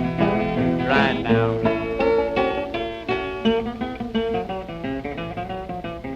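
Country blues played on acoustic guitar: a quick run of picked notes, easing off slightly in loudness.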